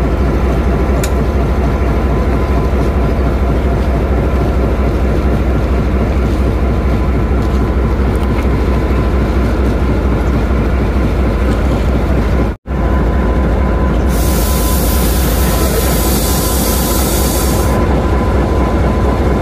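Diesel locomotive engine idling close by, a loud steady low rumble. Past the middle the sound breaks off for an instant, and soon after a hiss joins in for about four seconds.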